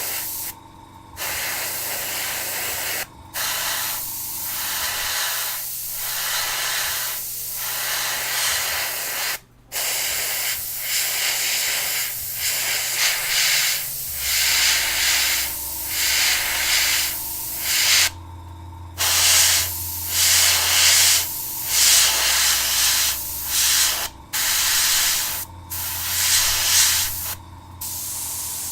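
Airbrush spraying paint in a string of short hissing bursts, stopping and starting many times as the trigger is worked. A low steady hum joins about halfway through.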